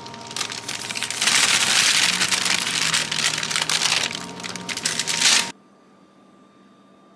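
Parchment paper crinkling and rustling as roasted cherry tomatoes are scraped off it into a pan of creamy linguine, a dense crackling that cuts off suddenly about five and a half seconds in.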